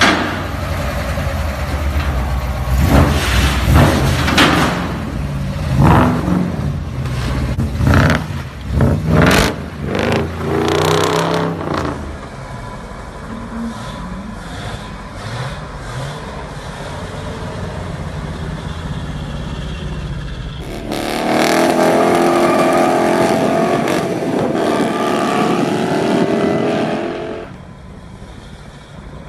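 Volga's ZMZ V8 on custom exhaust headers, revved in a series of sharp blips for about the first twelve seconds, then settling to a quieter steady run. About twenty-one seconds in it comes up loud again for around six seconds with rising pitch, then falls away.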